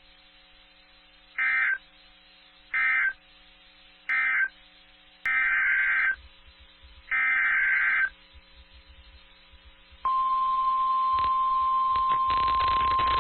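Emergency Alert System data tones from NOAA Weather Radio: three short buzzy data bursts close the end of the warning, then two longer bursts follow. About ten seconds in, a single steady warning alarm tone starts.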